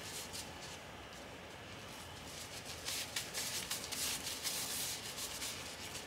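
Clear disposable plastic gloves rustling and crinkling as hands roll raw ground meat into meatballs: a soft rubbing with quick crinkles, busiest in the middle seconds.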